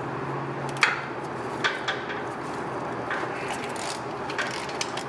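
Hand ratchet with a half-inch socket and extension working a starter mounting bolt loose: a few sharp metallic clicks and taps of the tool, over a steady low hum.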